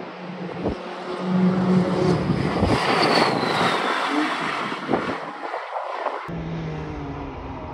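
A race car passes at speed: its engine note swells to a peak a couple of seconds in, with a slight fall in pitch, then fades as the car moves away. Near the end the sound cuts abruptly to a steadier, more distant engine drone.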